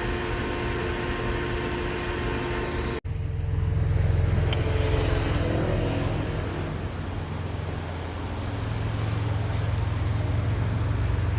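Hyundai Galloper LPG engine idling steadily after being restarted, running normally again now that its cold-start fault is fixed. The first three seconds hold a different steady mechanical hum, then the sound cuts abruptly and the engine's low idle comes in.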